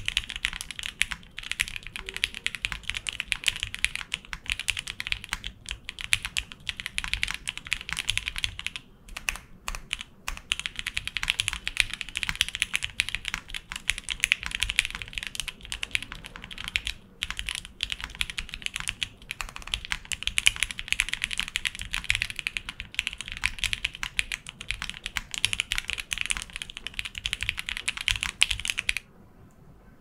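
Fast, continuous typing on a NingNing60 mechanical keyboard with lubed Gateron Milky Yellow Pro linear switches, CRP keycaps, an aluminium plate and gummy O-ring mounting, a creamy, slightly pingy sound. There is a brief pause about nine seconds in, and the typing stops suddenly about a second before the end.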